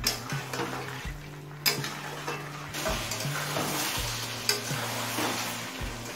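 Marinated chicken pieces sizzling in hot oil on a medium flame while being stirred, with a few knocks of the stirring utensil against the pan. This is the bhuna stage of a curry, where the meat is fried down in its spices.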